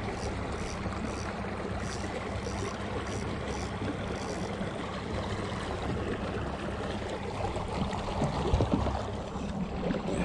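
Steady rush of water along the hull of a kayak under way, with a low steady hum underneath.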